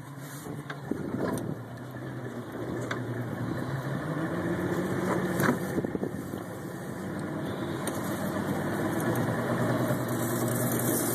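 A boat's engine running under way, its pitch rising a little a few seconds in as the boat picks up speed, with a few short knocks.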